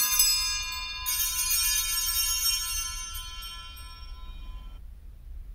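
Altar bells rung at the elevation of the chalice after the consecration, marking the moment of consecration. A bright jingling ring, shaken again about a second in, fades and stops shortly before the end.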